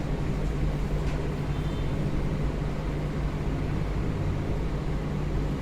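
A steady low hum of room background noise, even in level, with a faint click about a second in.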